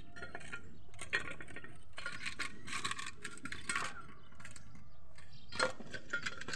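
Hard plastic toy animal figures clattering and clicking against each other and a plastic basket as they are moved about, in irregular bursts of light knocks.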